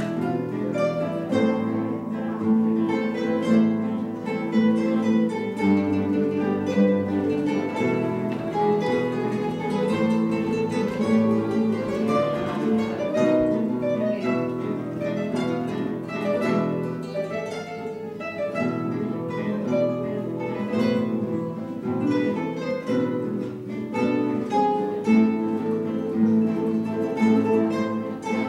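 Ensemble of classical guitars playing a piece together, plucked melody over chords. The piece closes on a held final chord that rings out at the very end.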